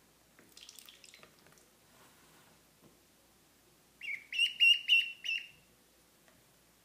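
Duckling peeping: a quick run of about six loud, high peeps about four seconds in.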